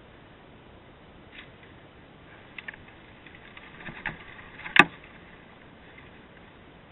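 A sharp knock just under five seconds in, over steady faint background noise, with a few lighter clicks before it.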